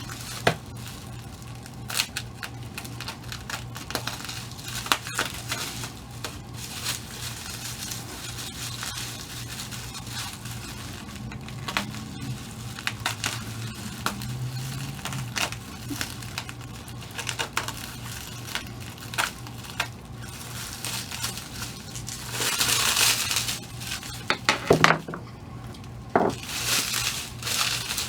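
Packaging wrapping being handled and unwrapped: crinkling and rustling with scattered light clicks and taps, growing denser near the end, over a steady low hum.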